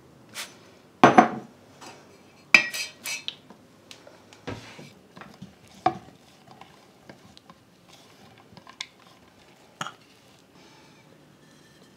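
A glass jar clinking and knocking as chopped garlic is scooped into it with a utensil, with light scraping between the clinks. The sharpest clinks come about one and two and a half seconds in; the second one rings briefly.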